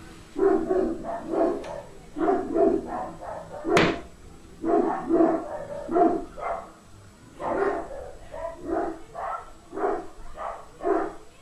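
A pet dog barking repeatedly in quick clusters, worked up by a husky outside. A sharp click about four seconds in.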